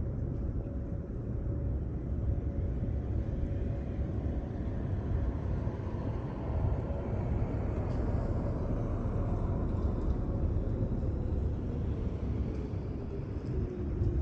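Distant Whelen outdoor warning sirens sounding a faint steady tone that slides down in pitch over the second half, over a heavy low rumble.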